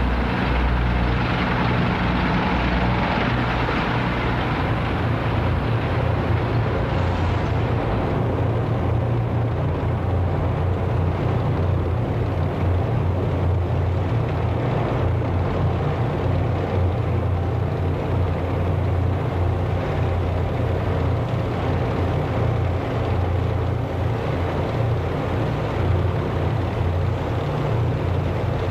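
A column of armoured military vehicles driving past, a steady low engine rumble under an even haze of noise.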